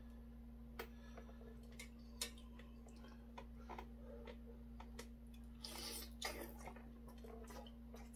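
Eating at a desk: scattered faint clicks of metal chopsticks against a stainless steel bowl, and chewing of boiled chicken meat, over a steady low hum.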